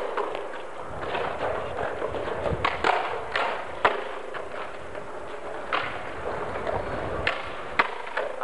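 Skateboards on concrete paving: a string of sharp clacks and knocks from boards hitting the ground, over the rough noise of wheels rolling.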